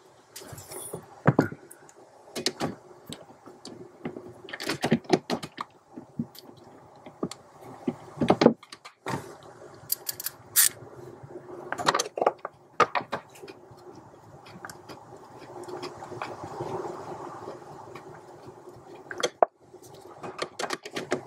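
Wrench working the mounting nuts of a clutch master cylinder under a van's dashboard: irregular metallic clicks and knocks of the tool on the nuts and studs, with rustling handling noise in between.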